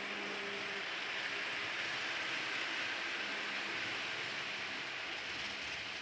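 HO-scale model trains running on the layout: a steady rolling hiss of wheels on track with a faint motor hum, swelling slightly in the middle.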